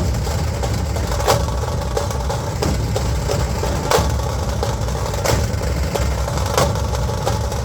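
Dhol drumming: a dense low rumble with a sharp accented strike that falls at an even beat, a little slower than once a second.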